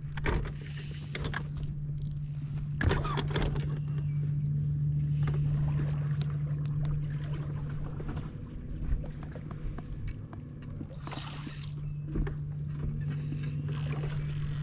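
A steady low hum from the bass boat, broken by several short bursts of splashing as a hooked bass is fought out of flooded brush.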